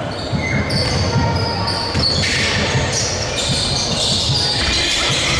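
Basketball bouncing on a hardwood court, with sneakers squeaking in short high chirps as players cut and stop, all echoing around a large sports hall.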